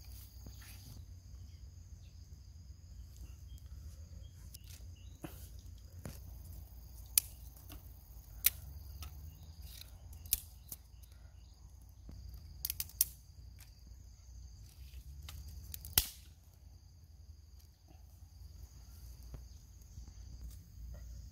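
Dry wooden sticks snapping and clacking as they are broken and laid down: about half a dozen sharp cracks scattered through, over a steady high insect drone and a low rumble.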